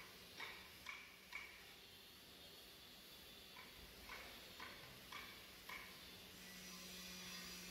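Near silence: a faint low hum with soft ticks about half a second apart, three near the start and five more in the middle.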